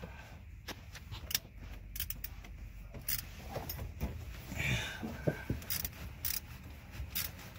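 Irregular metallic clicks and knocks from a spark plug socket, extension and wrench being worked on a spark plug deep in the engine bay, with some soft rustling of hands and sleeves.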